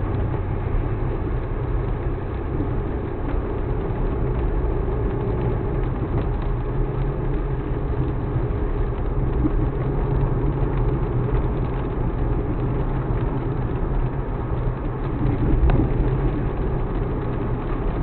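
Suzuki Alto Works HA36S's 660 cc turbocharged three-cylinder engine running steadily.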